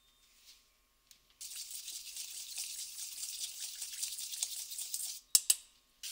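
Seasonings being stirred in a stainless steel bowl: a steady scraping swish with many small ticks for about four seconds. Then two sharp taps come close together, the loudest sounds here.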